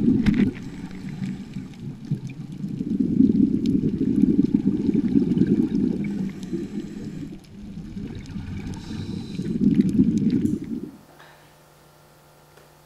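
Underwater scuba bubbles: a muffled, low rumbling gurgle of exhaled air from a diver's regulator, swelling and fading every few seconds with the breathing. It cuts off suddenly near the end, leaving a faint steady hum.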